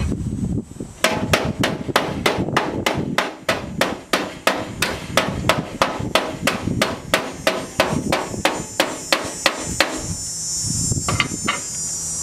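Hammer striking sheet metal in a steady series of blows, about three a second, with a short metallic ring after each. The blows stop, and a few quick taps follow near the end.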